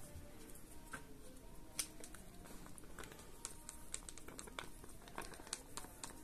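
Wooden craft stick stirring a mix of cold silicone glue and alcohol in a clear plastic cup: faint, irregular ticks and scrapes of wood against plastic as the liquid is worked together.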